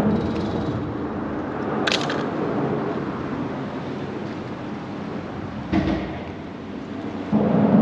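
Wind buffeting the microphone as a steady rushing noise, with one sharp click about two seconds in and a short thump near six seconds.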